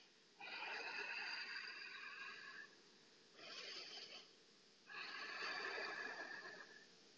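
Faint, slow breathing with a hoarse hiss, the ocean-like Ujjayi breath of yoga: a long breath of about two seconds, a short one, then another long one.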